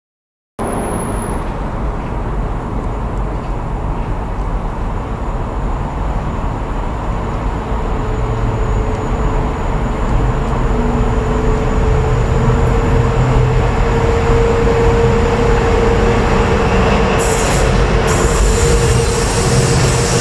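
Freightliner Class 66 diesel locomotive, with its two-stroke EMD V12 engine, hauling loaded hopper wagons as it approaches and draws close; its rumble and engine note grow steadily louder. A steady whine runs under it. The sound starts after a brief silence.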